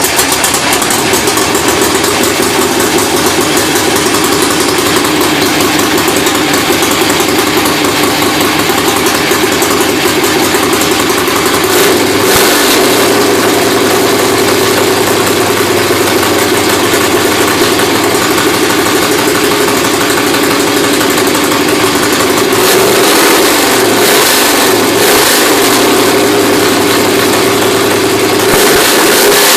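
Kohler CH730 V-twin engine fitted with a 1.2 Vogel carburetor, running loud and steady. Its pitch shifts about twelve seconds in, and the engine speed dips and rises a few times later on.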